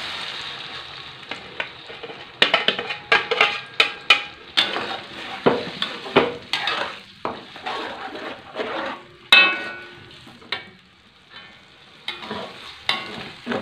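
Blended spice paste poured into hot oil in a wok, sizzling hard at first and then settling to a quieter frying hiss. From about two seconds in, a metal spatula stirs it, scraping and knocking against the wok in quick irregular strokes.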